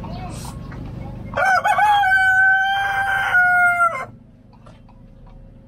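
A rooster crowing once, loud: one long call of about two and a half seconds, wavering at the start, then held and dropping slightly in pitch at the end.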